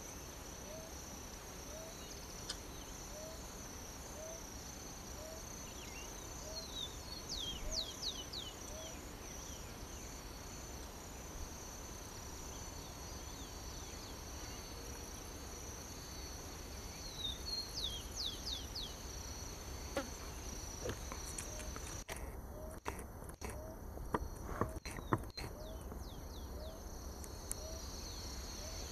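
Steady high drone of insects, with a short low chirp repeating under it and two quick runs of descending bird chirps. Several sharp clicks come in the last few seconds.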